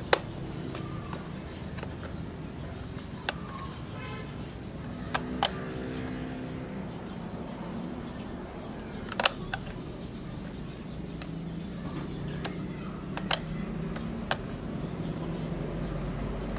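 About seven single sharp mechanical clicks, spaced irregularly, from the trigger and rotary fire selector of a Classic Army P90 airsoft electric gun being worked by hand. They come over a steady low background hum.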